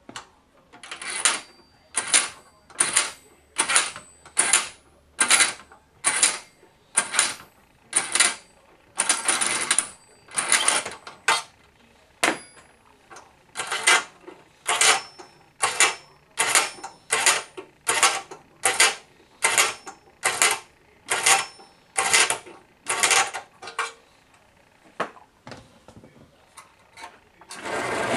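The dual clockwork spring motor of a Marx #21 tinplate windup diesel locomotive (two Marx riser-gear motors spliced together) being wound by hand. Its ratchet clicks in repeated winding strokes, a little more than one a second, each a short run of rapid clicks. Just before the end the released motor starts running as the locomotive pulls away.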